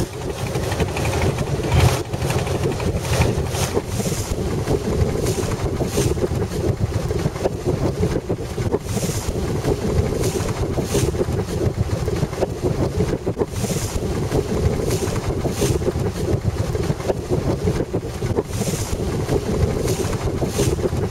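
A river boat's engine running steadily, heard on board, with wind gusting on the microphone.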